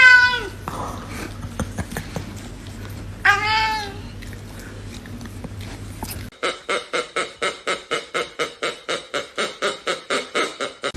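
A pet's drawn-out call trails off, and a second short call that rises and falls comes about three seconds later. From about six seconds in, a fast, even run of short repeated sounds follows, about four a second.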